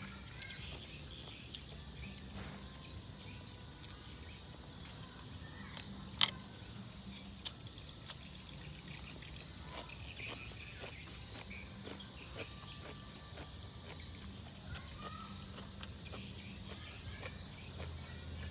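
Quiet rural outdoor ambience: faint bird chirps and insect calls over a low steady background, with scattered small clicks and one sharp click about six seconds in.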